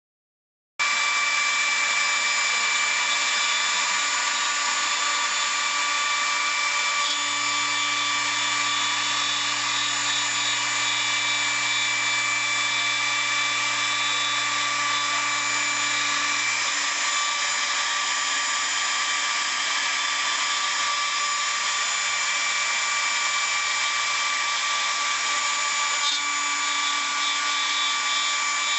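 Hobby CNC router milling wood: a steady spindle whine with several fixed high tones, starting abruptly just under a second in. A lower hum joins from about a third of the way in to past the middle, and again near the end.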